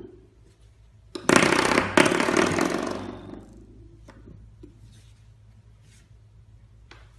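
Coiled-spring door stop flicked by a puppy, twanging with a loud buzzy vibration about a second in, flicked again a second later, then dying away. A few faint clicks follow.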